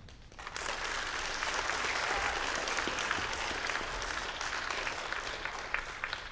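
Audience applauding, starting about half a second in and tailing off near the end.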